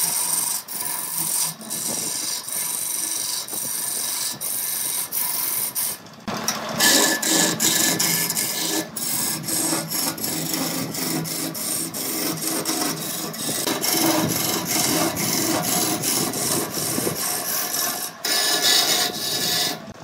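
Turning tool cutting a large glued-up wooden cylinder spinning on a wood lathe, throwing off shavings: a rough, scraping hiss that breaks off briefly again and again as the tool is eased off, with a short pause about six seconds in.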